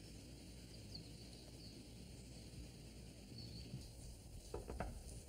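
Quiet background ambience: a faint, steady low rumble, with a few soft knocks near the end.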